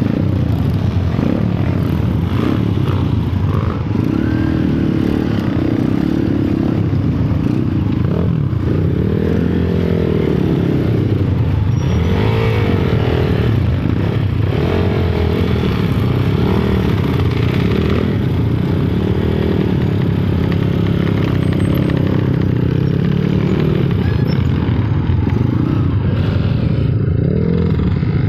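Motorcycle engine running while being ridden, its pitch rising and falling again and again with the throttle over a steady rumble.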